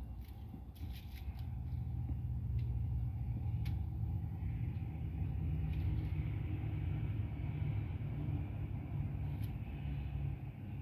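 A steady low engine rumble, as of a motor vehicle running close by, that swells about a second and a half in and holds, with a few light clicks over it.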